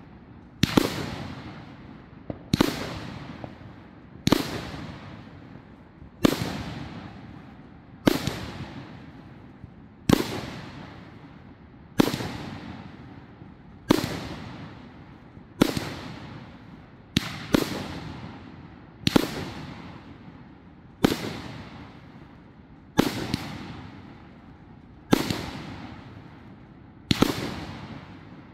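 25-shot 500 g "Ghost" firework cake firing, about seventeen sharp bangs, roughly one every two seconds. Each bang has a tail that fades over a second or so, and two shots come close together around the middle.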